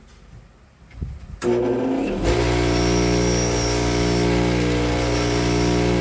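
Bench grinder switched on about a second and a half in, its motor spinning up within a second, rising in pitch, then running at a steady full-speed hum with a hiss.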